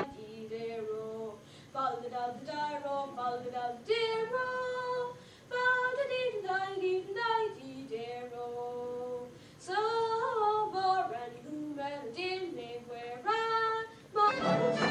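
A woman singing solo and unaccompanied, a slow melody in phrases with long held notes.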